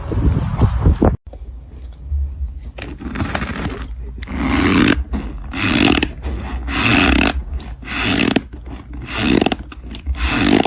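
An animal roaring again and again, about once a second, after a short burst of wind or vehicle noise that cuts off about a second in.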